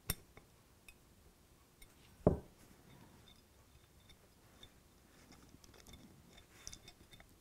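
Faint small clicks from a plastic model locomotive bogie and its gear casing being worked into place by hand, with one sharper click at the start and a soft knock about two seconds in.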